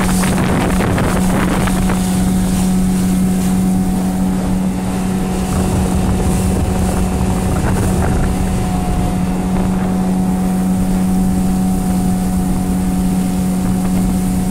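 Small motorboat's engine running at a steady pitch while the boat moves along. Wind buffets the microphone and water rushes past the hull.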